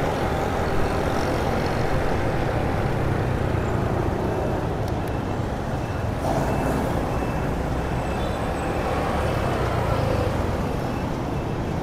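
Steady city street traffic: motorbike and car engines running, a continuous low hum with no break.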